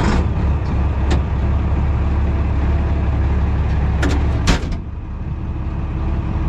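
Farm tractor engine running steadily, heard from inside the cab, with a few sharp clicks about a second in and around four seconds in.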